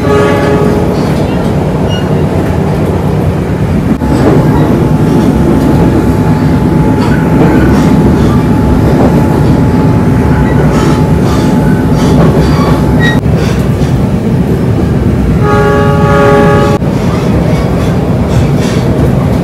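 Passenger train running on the rails, heard from inside the coach: a steady loud rumble of wheels and track. The locomotive's horn sounds briefly at the start and again for about a second near the end.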